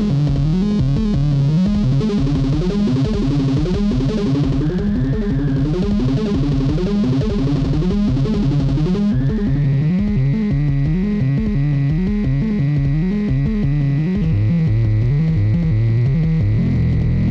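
Mutable Instruments Anushri analog synthesizer playing a repeating sequenced bass line with its built-in drum machine. About nine seconds in a steady high whistling tone joins and holds.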